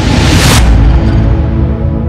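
Logo sting music: a rising whoosh that cuts off sharply about half a second in, over deep bass and held tones.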